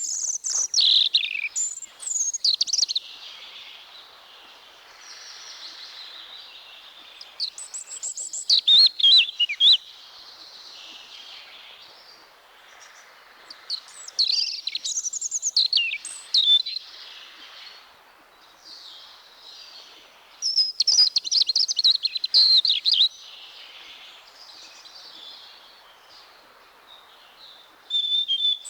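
A European robin singing: short, high, warbling phrases of two or three seconds, each followed by a pause of several seconds before the next.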